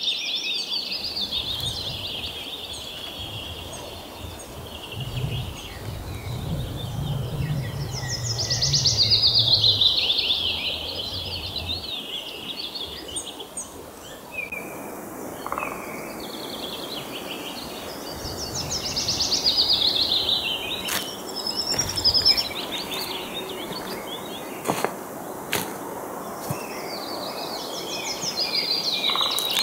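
Songbirds singing: repeated quick, high trills and chirps, loudest about a third and two thirds of the way in. A low rumble sits underneath for the first dozen seconds, and a few sharp clicks come in the second half.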